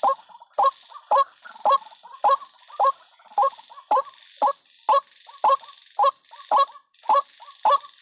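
White-breasted waterhen calls: a long run of short, evenly spaced calls, about two a second. It is a lure call, used to make territorial waterhens agitated and aggressive.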